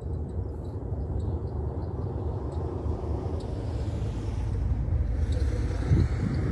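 Wind buffeting the microphone outdoors, a low, uneven rumble, with a hiss swelling over the last few seconds and a thump about six seconds in before the sound drops off abruptly.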